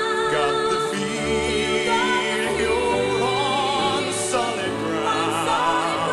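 Orchestral accompaniment of a slow ballad playing between sung lines, with melody notes held long with vibrato over a steady bass.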